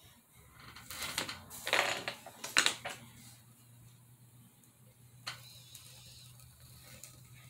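Pencil and craft knife scratching across a styrofoam plate as a strip is marked and cut: several short scratchy strokes in the first few seconds, then a single click about five seconds in.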